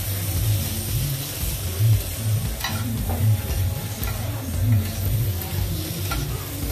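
Meat frying on a large flat griddle, sizzling in oil, while a metal spatula scrapes and clinks as it stirs and turns the pieces. A low pulsing thump about twice a second runs underneath.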